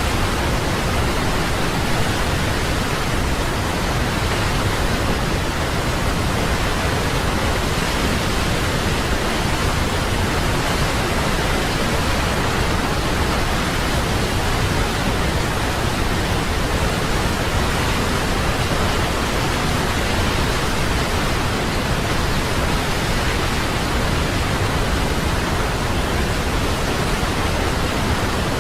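Waterfall: a steady, even rush of falling water that does not change, with nothing else heard over it.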